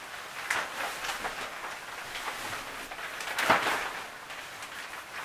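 Shower curtain and liner fabric rustling as they are handled and hung. A few short rustles come early, and a louder, longer one comes about three and a half seconds in.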